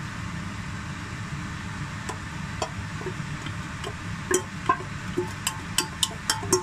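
A spatula scraping grated coconut out of a bowl into a frying pan, knocking against the bowl's rim in sharp clinks that begin about two seconds in and come quicker and louder in the second half. A steady low hum runs underneath.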